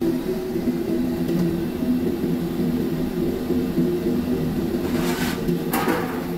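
Steady hum of the running machinery of a semi-automatic french fry production line, several low tones held level. Two brief rushes of noise near the end.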